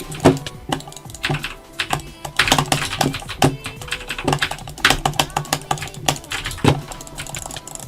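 Quick, irregular clicking, a few sharp clicks a second, some louder than others.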